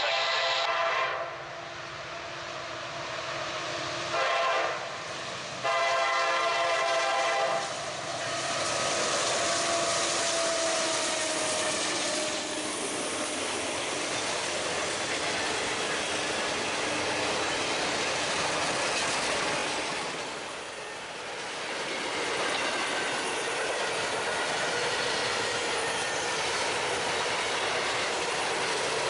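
Norfolk Southern train sounding its horn: a long blast, a short one and another long one within the first eight seconds. The train then rolls past with a steady rush of locomotive and wheels on the rails.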